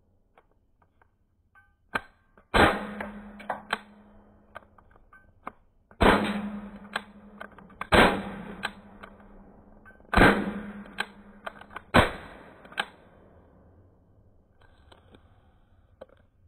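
A 4.5 mm pistol firing a series of sharp shots, about five loud ones and a couple of lighter ones, each trailing off in a short ringing decay. Small clicks come between the shots.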